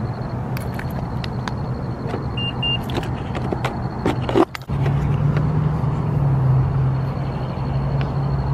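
Clicks and jingling of keys being handled beside a car, with two short electronic beeps about two and a half seconds in and a sharp thump a little past halfway, all over a steady low hum.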